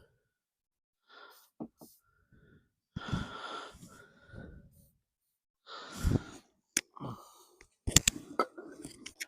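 Heavy breaths and sighs of effort, with a few sharp clicks and knocks in between, the loudest cluster near the end.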